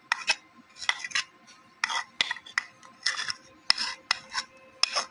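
Silicone spatula scraping thick whipping cream out of a plastic tub into a metal pot, about eight short scrapes and knocks against the tub, one or two a second.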